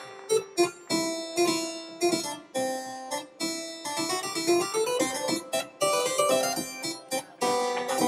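A harpsichord played upside down, from behind the keyboard: a quick, lively run of plucked notes with sharp attacks.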